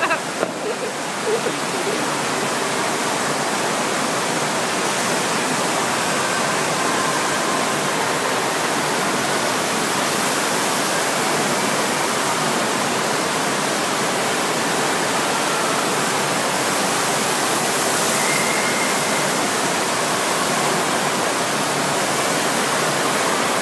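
Steady rushing of water from an indoor sheet-wave surf simulator: a thin, fast sheet of water pumped up and over the padded wave ramp.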